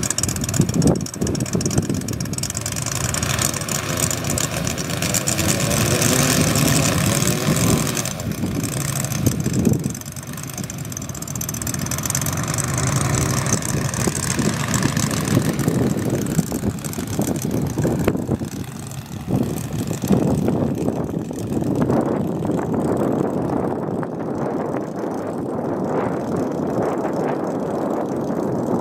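Moki 250 cc four-stroke radial engine of a giant-scale RC Hellcat idling, turning a 32-inch three-blade propeller. Its level and pitch shift a few times as the model taxis out.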